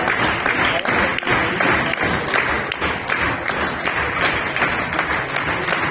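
Audience applauding, with individual hand claps sharp and close alongside the general clapping of the crowd.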